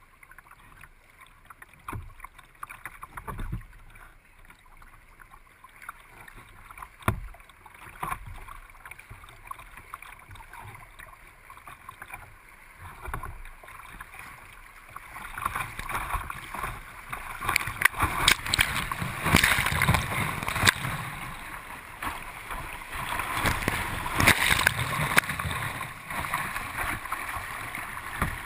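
River water lapping and splashing against a boat hull close to the microphone, with a few knocks in the first half. From about halfway the rush of water grows much louder as the boat runs into a whitewater riffle.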